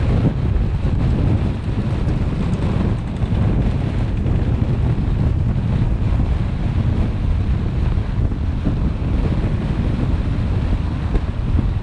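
Wind buffeting the microphone of a camera mounted on a moving car, a steady low rumble with the car's road noise mixed in.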